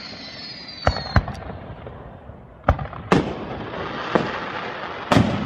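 Aerial fireworks bursting overhead: about six sharp bangs, with a hissing crackle from the burning stars between them. A thin whistle, falling slightly in pitch, fades out about a second in.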